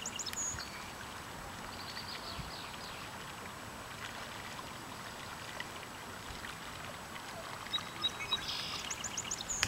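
Calm-lake ambience: a faint, steady watery hiss, with a few short high chirps near the start and again near the end.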